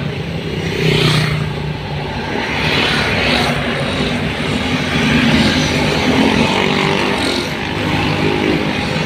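A vehicle's engine running on the move over steady road noise, its note shifting up and down as the speed changes.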